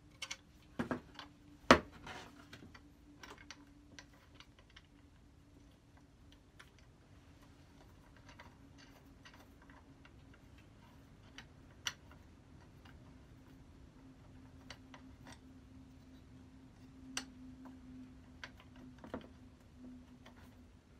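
Metal parts of a Stanley No. 71 router plane clicking and tapping as it is reassembled by hand: scattered sharp clicks, the loudest about two seconds in, with a few more later. A faint steady low hum runs underneath.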